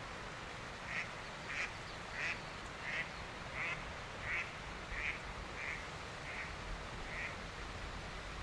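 Turkey yelping: a run of about ten short, evenly spaced yelps, fading over the last few.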